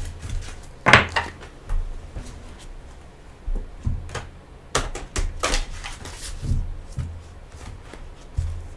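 Tarot cards being shuffled and handled: irregular snaps and rustles, the sharpest about a second in and a cluster between four and six and a half seconds.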